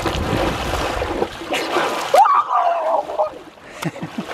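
Water splashing and churning from a swimmer's fast strokes close to the microphone. A short wavering voice cuts in a little past halfway, and the splashing dies down before picking up again near the end.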